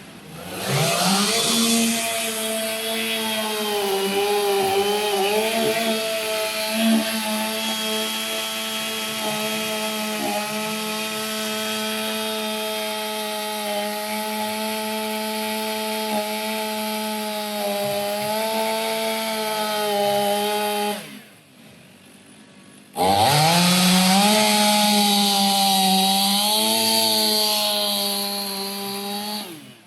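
Two-stroke chainsaw running at high revs, cutting into a log, its pitch wavering slightly under load. It winds up at the start, stops about two-thirds of the way through, revs up again about two seconds later, and winds down near the end.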